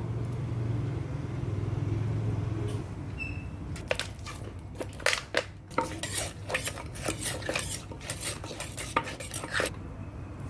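Kitchen utensils and dishes clattering: an irregular run of sharp clinks and knocks that starts about four seconds in, grows busier, and stops shortly before the end.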